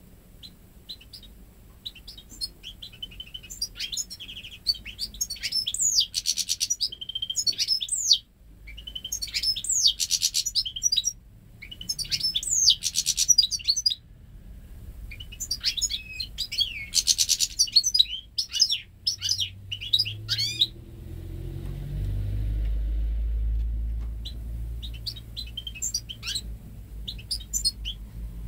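Goldfinch × canary hybrid (saka melezi) singing long, fast, twittering phrases with buzzy trilled passages, which the breeder says are entirely goldfinch song. The song breaks off about two-thirds of the way through, while a low rumble rises in the background. Short notes return near the end.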